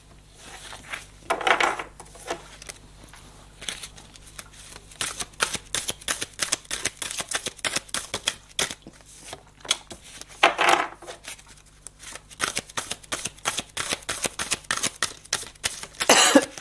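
A deck of divination cards being shuffled by hand: a quick, irregular patter of card clicks, with three louder shuffling sounds, about a second and a half in, around ten seconds in, and near the end.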